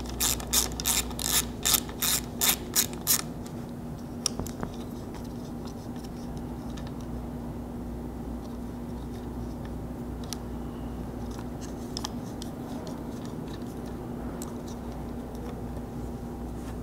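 Socket ratchet clicking quickly, about a dozen clicks at roughly four a second over the first three seconds, while the 10mm nuts holding a plastic roof retainer are backed off. After that only a few faint clicks of handling over a steady low hum.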